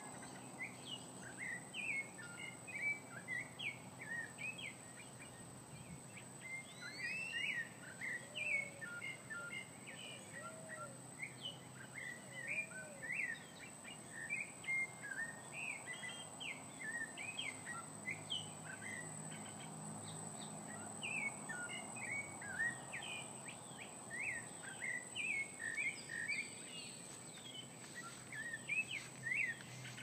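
Many birds chirping and calling together in the trees, a dense run of short, quick chirps throughout, over a steady high-pitched tone.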